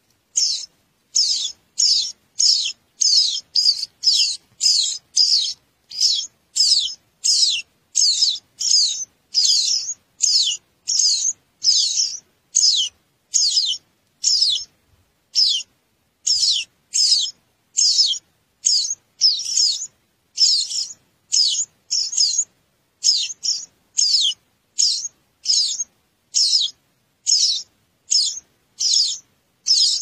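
Songbird nestlings begging in the nest: a steady, regular series of short, high, downward-sliding cheeps, about one and a half a second.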